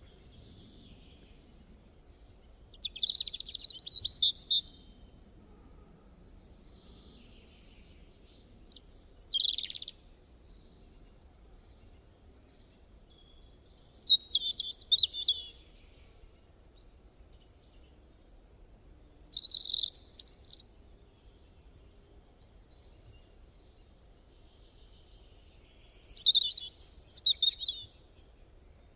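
A songbird singing short, high-pitched, twittering phrases, five of them spaced about five to six seconds apart, over a faint steady background.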